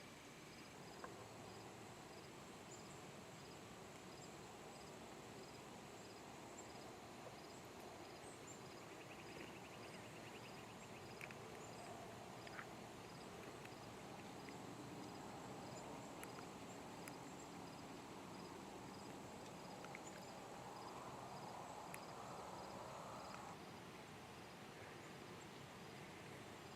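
Faint insect chorus: a steady high trill and a regular chirp repeating a little faster than once a second. A soft rushing noise swells toward the end and cuts off suddenly, with a few faint clicks along the way.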